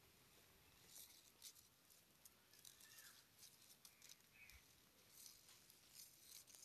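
Near silence outdoors, with faint scratchy ticks now and then and a couple of faint short chirps.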